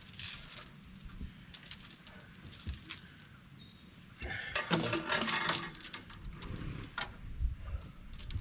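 Heavy steel log chain clinking and rattling as it is handled to chain down a load of logs on a truck. About four seconds in, it rattles loudly for a couple of seconds as it is thrown over the top of the load, then goes back to lighter clinks.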